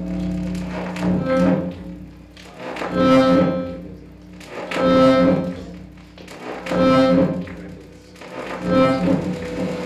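Amplified sound played through a mixer and speakers: a low steady drone under a pitched, layered tone that swells and fades about every two seconds, five times.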